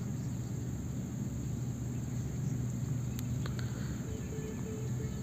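Steady low hum of a gondola cable-car cabin in motion, with a couple of faint clicks a little over three seconds in.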